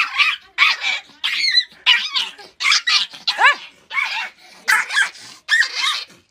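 Small puppy yelping and barking over and over, two or three high-pitched yelps a second, some of them bending up and down in pitch like a whine.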